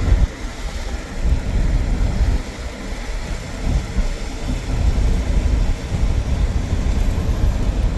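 Wind buffeting the microphone inside a moving car, over road noise: a gusty low rumble.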